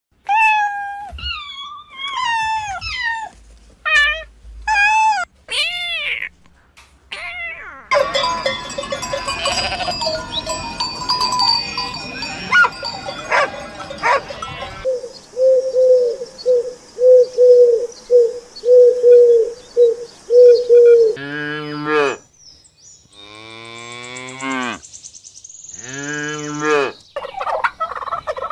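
A run of animal calls: kittens mewing for the first several seconds, then a large flock of sheep bleating over a busy din. Later come short repeated tones, about two a second, and then a few long, deep, wavering bleats.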